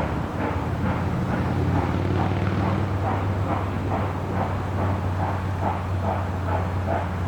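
A railroad locomotive moving slowly, with a steady low engine drone and a rhythmic pulse of about two to three beats a second that grows stronger toward the end.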